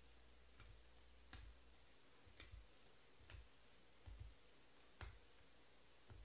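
Near silence with faint, short clicks at uneven spacing, about one a second, some coming in quick pairs.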